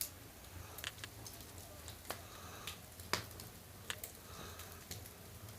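Wood fire in an open brick fireplace, loaded with a full armload of logs, crackling with irregular sharp pops, the loudest about three seconds in, over a faint low steady hum.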